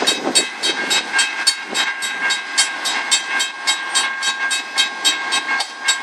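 Freight train passing, with rapid regular clicking strikes, about five a second, over a steady high tone.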